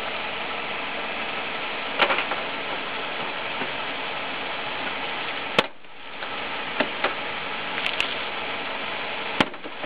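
A car engine idling steadily, with sharp plastic clicks and knocks as the corner turn-signal lamp of a 2004 Pontiac Grand Am is pressed back into the front end. There is one click about two seconds in, a louder one midway, and several more near the end.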